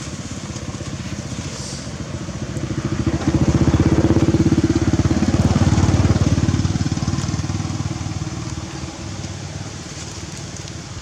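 A vehicle engine running with a fast, even pulse. It grows louder about three seconds in and fades over the last few seconds, as a vehicle passing by does.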